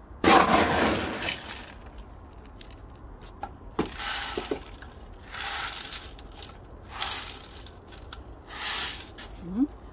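Coarse gritty succulent potting mix poured into a large glazed ceramic planter in about five rattling, hissing pours, the first the loudest.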